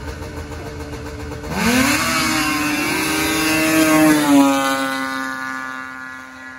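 Race snowmobiles launching at full throttle. The engines hum steadily at first. About a second and a half in, the engine pitch climbs sharply and stays loud and high as a sled passes close by. The pitch then drops and the sound fades as the sled speeds away down the track.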